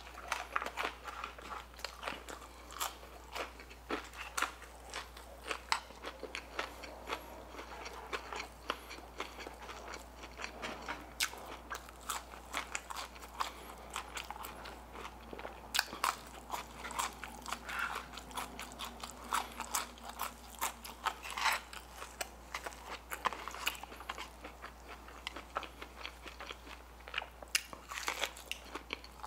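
Close-miked crunching, biting and chewing of crispy Nashville-style fried chicken tenders and crinkle-cut fries, many sharp crunches throughout, over a faint steady low hum.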